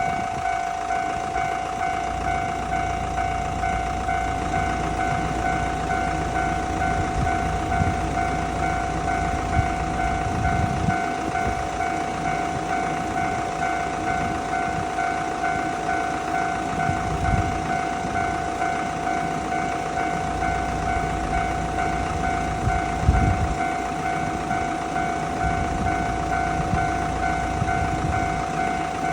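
Japanese railroad crossing warning alarm ringing its repeated 'kan-kan' tone without a break, the signal that a train is approaching and the crossing is closed. A low rumble runs underneath.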